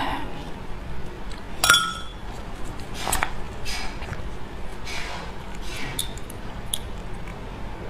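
Tableware clinking during a meal of beef bone marrow: one sharp ringing clink a little under two seconds in, as of a bone or utensil striking a dish. It is followed by softer clicks and short eating noises.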